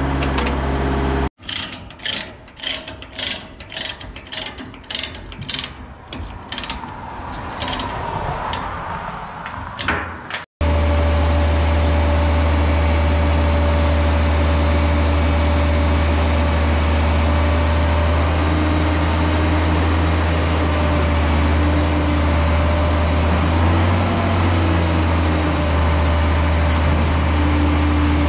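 A Kubota mini excavator's engine idles briefly, then a ratchet strap is cranked in a run of sharp, evenly spaced clicks for about nine seconds. From about ten seconds in, a truck's engine runs steadily with a higher whine rising and falling, as the truck's rollback bed carrying the excavator is drawn back level.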